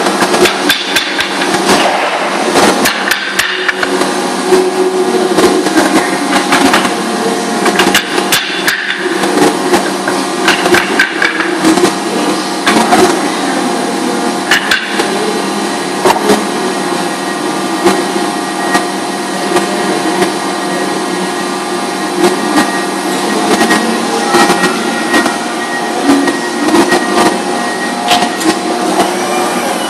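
Steady drone of paper-plant machinery, several fixed tones held throughout, under frequent irregular knocks and clatters.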